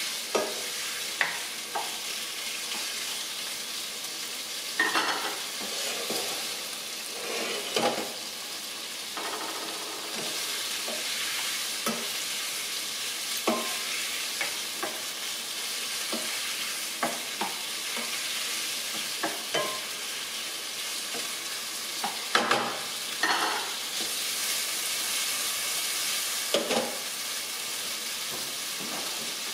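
Shrimp being seared in hot olive oil in a large frying pan over high heat, sizzling steadily, with occasional sharp clicks.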